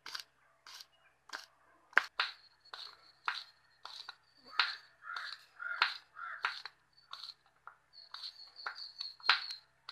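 Kitchen knife slicing green chillies into rounds on a cutting board: a run of quick, irregular chops, about two a second.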